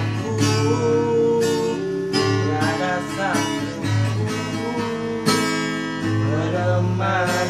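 Acoustic guitar strummed under a man's sung melody, with long held and bending notes.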